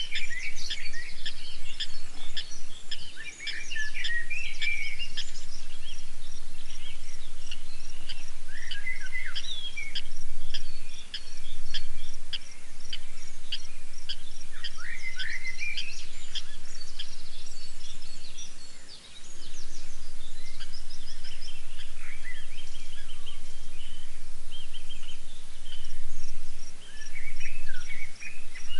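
A chorus of birds calling: many quick, repeated chirps and ticks, with scattered short whistled calls that rise and fall in pitch.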